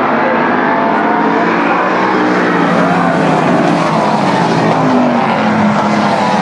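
Several stock car engines racing around the track together. Their overlapping pitches rise and fall as the cars pass.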